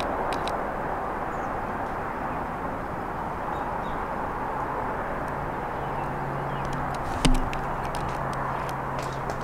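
Steady rush of distant road traffic. A low steady hum joins about four seconds in, and a single sharp knock comes about seven seconds in.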